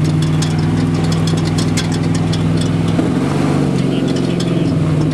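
Twin-turbo LS V8 of a four-seat sand buggy running under way, heard from on board. The steady engine note dips about three seconds in and climbs back near the end, with scattered sharp ticks over it.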